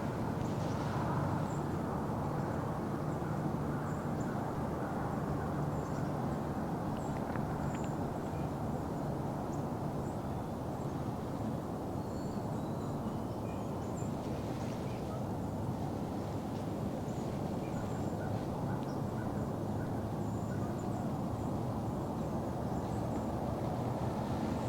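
Steady outdoor ambient rumble over open farm fields, with faint, scattered high bird chirps.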